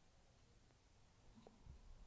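Near silence: faint room tone, with a few faint low knocks about one and a half seconds in.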